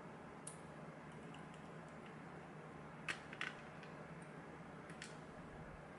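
A few faint, sharp clicks of small lock parts (pins and lock hardware) being handled as the lock is taken apart. The loudest is a close pair about three seconds in, over a steady low hiss.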